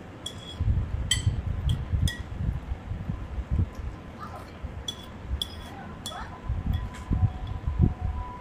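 A metal spoon clinks sharply against a ceramic soup bowl several times while bakso broth is spooned up and sipped, amid low, dull eating and handling sounds. A faint steady tone comes in about six seconds in.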